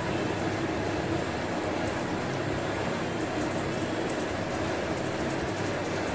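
Spice paste bubbling and sizzling in a pan as it is cooked down until somewhat dry, a steady seething noise with a low hum underneath.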